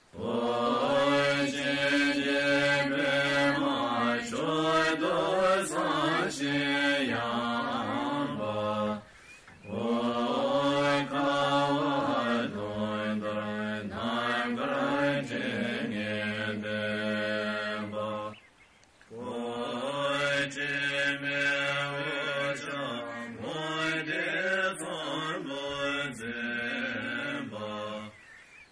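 Chanted Buddhist mantra: a voice sings long, slow melodic phrases over a low steady drone, breaking off briefly twice.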